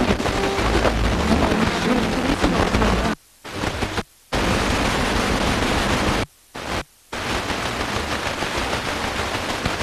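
FM radio tuner output of hiss and static from weak, distant stations, with faint station audio buried in the noise at first. The sound drops out briefly four times as the tuner is stepped up the band.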